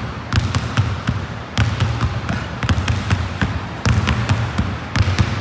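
Two basketballs dribbled at once on a hardwood gym floor: a quick, uneven run of sharp bounces, each with a low thud.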